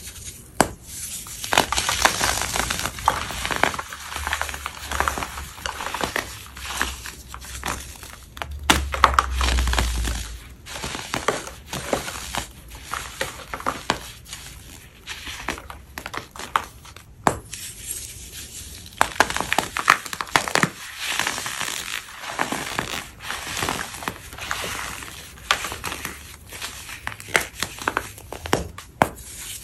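Dry, crumbly blocks of chalky white powder being crushed and crumbled: dense, crisp crunching with many sharp crackles, easing off briefly a bit over halfway through.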